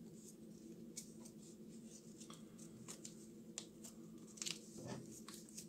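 Faint crinkling and rustling of origami paper being folded and tucked by hand, with scattered soft crackles, over a faint steady hum.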